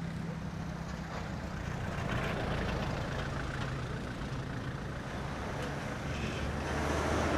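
Motor vehicle engine running amid road traffic noise, a steady low hum that grows louder near the end.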